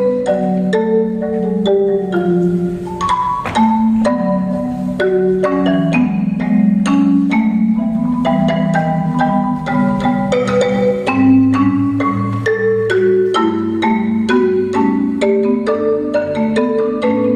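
Solo concert marimba played with mallets: a melody of struck notes over long rolled notes in the lower register, with a deeper bass line coming in about eleven seconds in.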